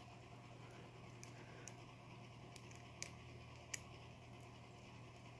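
Faint, sharp clicks of a lock pick and tension wrench working the pins of a Medeco 51S padlock, a handful spread over a few seconds, the loudest two about three and three and three-quarter seconds in, over a low steady hum.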